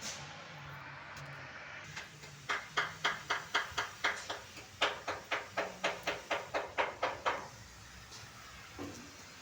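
A run of sharp, evenly spaced knocks, about four a second for some five seconds with a short break in the middle, over a low steady hum.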